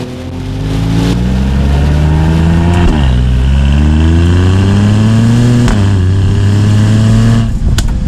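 Mercedes-AMG GLE43's twin-turbo 3.0-litre V6, on a Stage 1 remap, accelerating hard: the exhaust note rises, drops sharply at two upshifts of the 9-speed automatic about 3 and 6 seconds in, and climbs again. Near the end the throttle closes and a few sharp exhaust pops follow.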